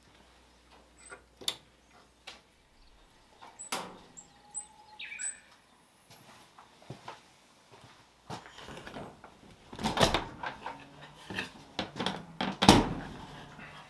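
Latch and metal door of a shiitake drying cabinet being worked open, a run of clicks and clatter with a sharp knock near the end. Scattered small clicks and a few short high chirps come earlier.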